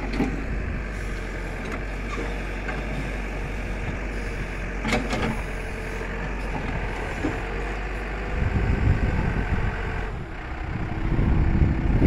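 Backhoe engine running steadily, with a faint steady whine over it.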